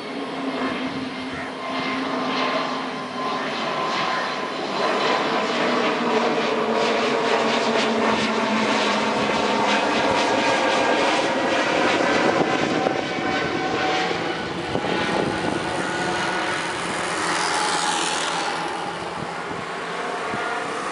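Airbus A320neo turbofan jet engines at climb power as the airliner climbs away overhead after takeoff: a steady jet noise with several whining tones that slowly fall in pitch.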